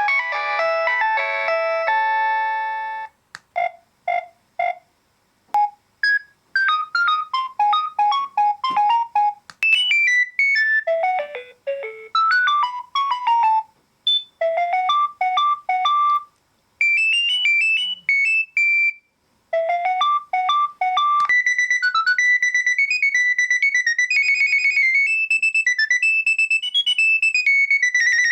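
Nokia 7250 mobile phone ringtones played one after another: short electronic tunes with chords and quick note runs, each a few seconds long, with brief pauses between them.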